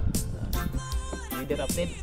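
Background music with a steady drum beat, a stepping bass line and a melody.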